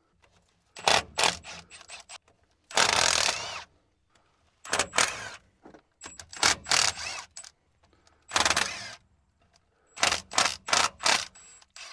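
A power tool run in a series of short bursts, backing out the bolts of a truck's rear differential cover.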